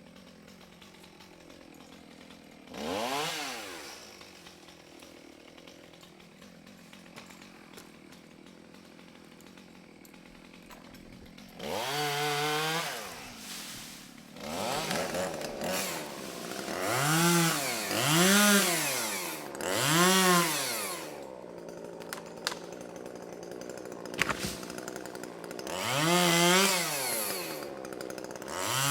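Chainsaw idling, revved up repeatedly, each rev rising and falling in pitch: once early, a run of about six revs in the middle, and another near the end.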